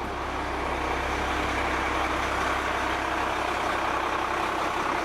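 Vehicle engine idling steadily: a low hum under a broad rushing noise that grows louder over the first second, then holds.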